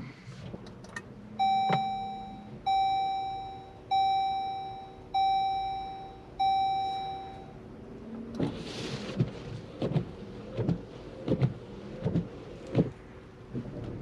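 Jeep Compass cabin warning chime: five bell-like tones of one pitch, each fading away, about a second and a quarter apart. It is followed by a run of sharp clicks and knocks over a steady low hum.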